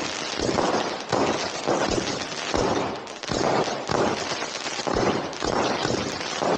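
Firework fountain fired at close range: a steady fizzing hiss with a quick run of sharp pops and crackles, pulsing about twice a second, and now and then a low thud as a shot goes up.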